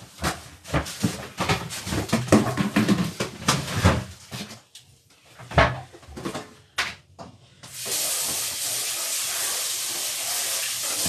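Clattering and knocks of cooking utensils, one knock louder than the rest, then about two-thirds of the way through a sudden, steady sizzle starts as food goes into hot oil in a pan.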